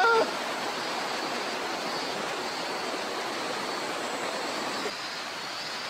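Steady rush of flowing river water, an even, unbroken hiss with no separate events.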